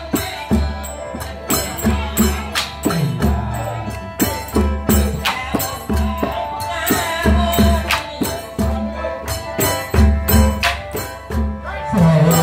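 Live Surin Khmer folk music for the Ruem Angre dance: small ching cup cymbals and a drum keep a steady beat, with villagers singing over it through microphones.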